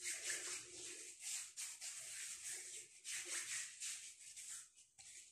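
Palms rubbing together briskly, skin on skin: a rough, continuous swishing made of many quick strokes. It pauses briefly near the end, then starts again.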